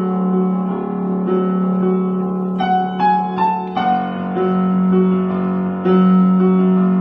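Background piano music: a steady low note held under repeated chords, with a short run of rising notes about three seconds in.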